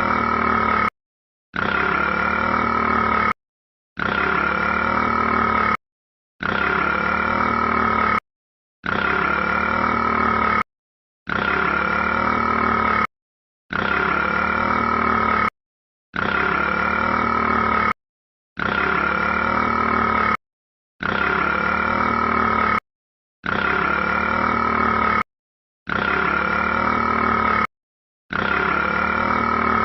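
A rat's burp clip, just under two seconds long, looped over and over with half-second silent gaps, about twelve identical repeats.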